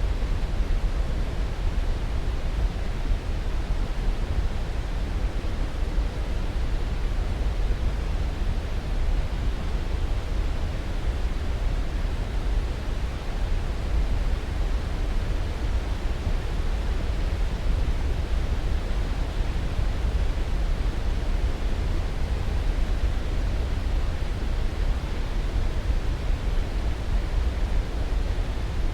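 Steady sleep-aid white noise, heaviest in the low end and thinning toward the top, with no change in level or character.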